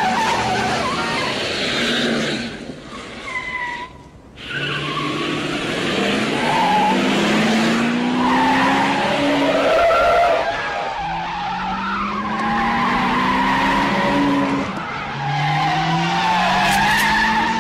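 A car accelerating hard with tyres squealing. The engine revs up in three rising sweeps as it climbs through the gears.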